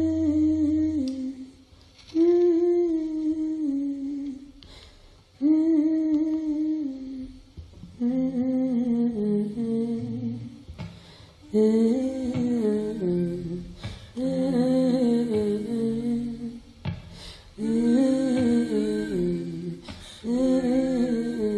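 Wordless vocal humming in slow phrases of about two seconds each. At first a single voice holds each phrase, then from about eight seconds in several voices hum together in harmony.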